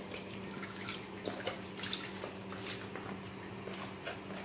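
Fresh milk poured from a small packet into an aluminium saucepan, trickling and dripping in small irregular splashes over a steady low hum.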